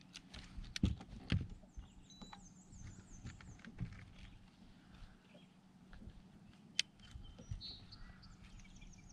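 Irregular knocks and clicks as a landed smallmouth bass and a handheld fish scale are handled on the deck of an aluminum bass boat. The sharpest clicks come about a second in and again near seven seconds.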